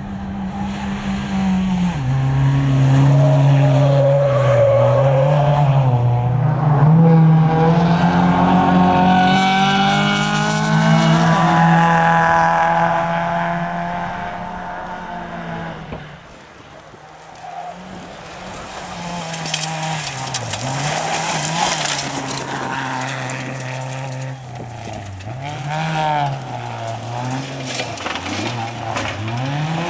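Dacia Logan rally car's engine revving hard at full throttle, its pitch climbing and dropping again and again with gear changes and lifts off the throttle. It fades about halfway through, then comes back close with short, sharp rev rises and dips.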